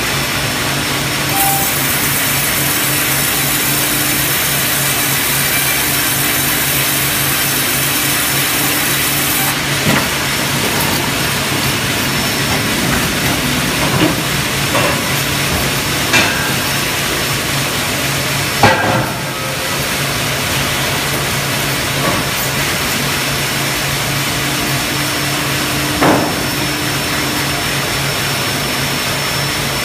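LBL Brenta log band sawmill running with its Spider 1260 hydraulic carriage: a loud, steady machinery din with a hum under it. For about eight seconds near the start a high hiss rises over it as the band blade cuts through a squared log, and several sharp knocks and clunks come at irregular intervals after that.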